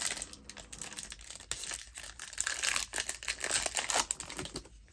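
A trading-card pack wrapper crinkling as it is torn open and handled, a dense crackle that grows loudest past the middle.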